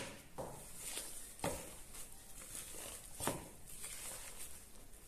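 Soft, irregular scraping and squishing of bread dough being stirred by hand with a utensil in a mixing bowl, as flour is worked into yeast water and melted butter for pretzel-bun dough; a few strokes stand out slightly louder.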